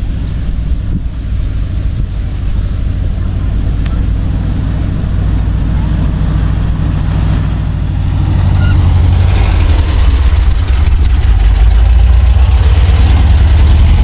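Volkswagen Kombi van's engine running as the van drives, getting louder about eight seconds in as it pulls harder.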